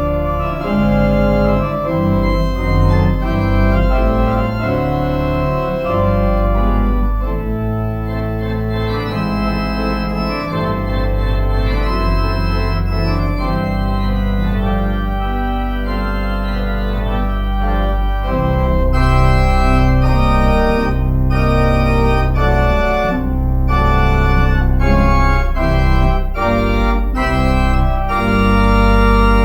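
Pipe or church organ playing a prelude: full sustained chords over a deep bass line, changing every second or so.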